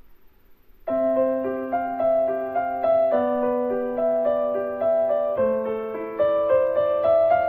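Background instrumental music, a melody of held notes over a steady lower note, starting about a second in after a quiet moment.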